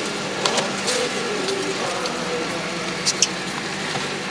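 The engine of a homemade off-road vehicle running steadily as it pushes through snowy brush, with a few short sharp knocks; the loudest comes about three seconds in.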